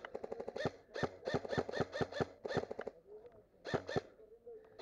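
Airsoft electric rifle firing: a very fast full-auto burst at the start, a longer string of rapid shots from about one to nearly three seconds in, and a couple more shots shortly before the end.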